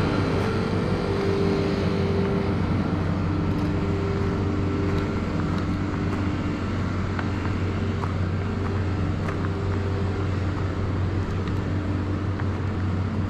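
A moving car's steady engine hum and road noise, holding an even pitch.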